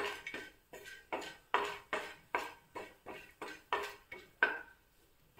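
Wooden spatula scraping and knocking across a dry iron tawa as whole spices roast, about two to three strokes a second, each with a short ring from the pan. The strokes stop shortly before the end.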